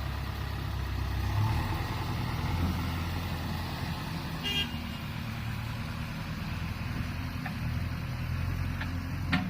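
Diesel engine of a JCB 3DX backhoe loader running steadily. A short high beep sounds about halfway through, and a sharp click near the end.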